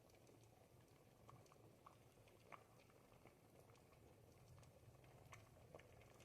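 Faint bubbling of a pot of ribollita, a thick Tuscan bread-and-vegetable soup, simmering on the fire: irregular small pops and plops over a low steady simmer.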